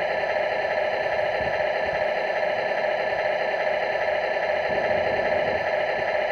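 An RC model Mercedes-Benz Actros II truck's electronic sound module playing a steady diesel engine idle through its small speaker, while the truck stands still.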